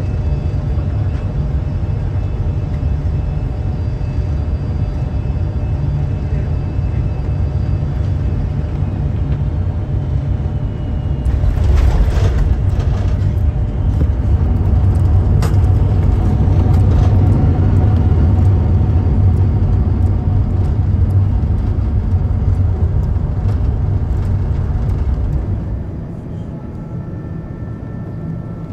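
Cabin noise of a Boeing 747-400 landing: a steady low rumble of engines and airflow, then a sudden jolt of touchdown about eleven seconds in, after which the rumble grows louder through the rollout as reverse thrust and braking take hold. Near the end it drops to the quieter, steady cabin hum of another airliner, an Airbus A330-800neo, on approach.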